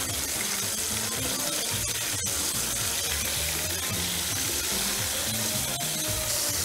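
Batter-coated prawns deep-frying in a pot of hot oil: a steady sizzle. Background music with a bass line runs underneath.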